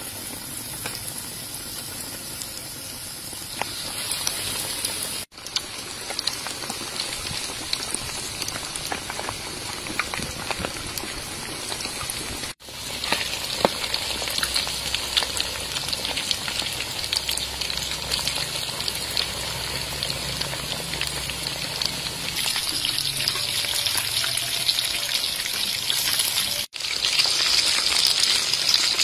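Breaded chicken legs deep-frying in a wok of hot oil: a steady, dense sizzle full of fine crackles and bubbling. It breaks off for an instant three times and is a little louder near the end.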